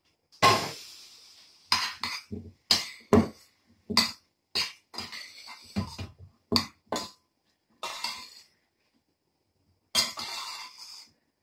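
A spoon stirring cooked rice in a stainless steel frying pan, knocking and scraping against the pan in about a dozen sharp, irregular clinks, with a pause of a second or so before a last knock and scrape near the end.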